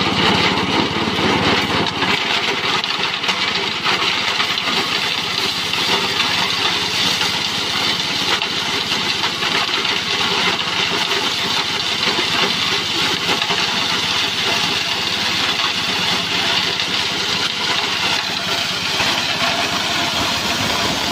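Small petrol engine running a grass-chopping machine, steady, with the cutter shredding material fed into the hopper.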